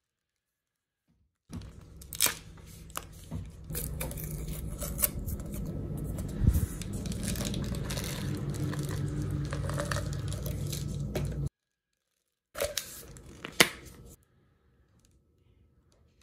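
Plastic shrink-band safety seal on a supplement bottle's cap being torn and peeled off by hand, crinkling with sharp snaps, in a long stretch and then a short second one.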